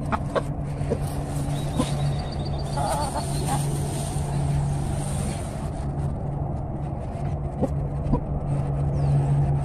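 Chickens foraging, with a few short clucking calls, most clearly about three seconds in, and scattered small clicks, over a steady low hum.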